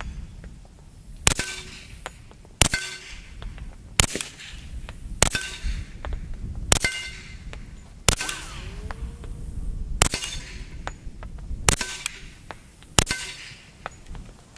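Nine suppressed .45 ACP shots from an H&K Mark 23 pistol fitted with a Knight's Armament suppressor, fired singly at an uneven pace of roughly one every one and a half seconds. Each is a sharp report followed by a short metallic ring.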